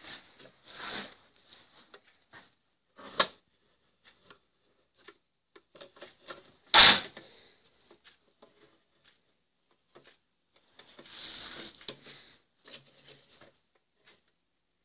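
Metal parts handled on a workbench: scattered light clicks and knocks, one loud knock about seven seconds in, and a short rustling scrape a few seconds later.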